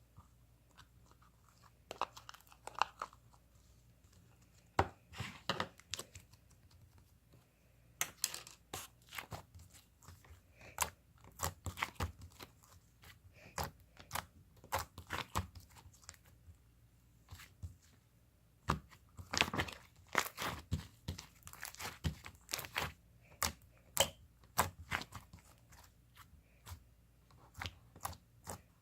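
Close crackling, crunching and crinkling as something is handled, in irregular clusters of sharp crackles with brief pauses.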